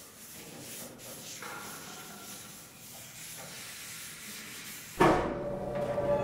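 Soft hissing noise with faint sustained background music tones. About five seconds in, a sudden loud hit and the music swells into full sustained chords.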